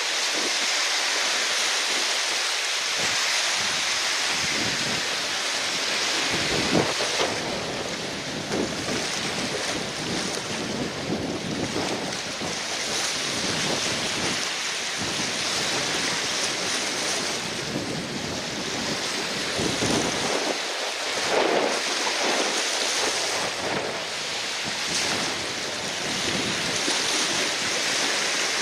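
Strong gusty wind buffeting the microphone over rushing, splashing water, rising and falling in level with the gusts.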